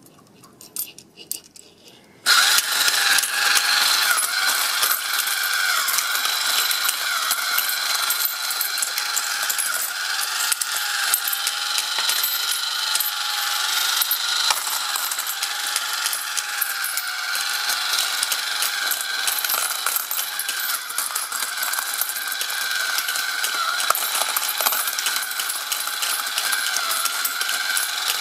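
Homemade plastic-sheet coin sorter switched on about two seconds in. It then runs steadily: a small battery-powered motor whines with a pitch that wavers in a regular cycle as the disc hopper turns, while coins clink and clatter through the mechanism.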